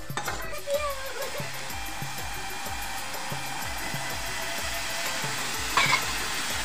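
Hot wok of fried prawns and yardlong beans hissing and sizzling steadily after water is added to the masala, with a brief loud clank about six seconds in. Background music with a steady beat plays underneath.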